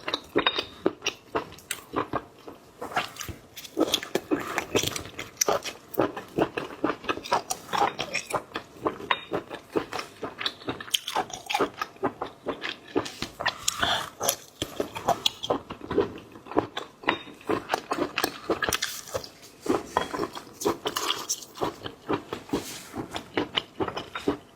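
Close-miked chewing and biting of seafood, wet smacking mouth sounds with many quick irregular clicks and occasional crunches.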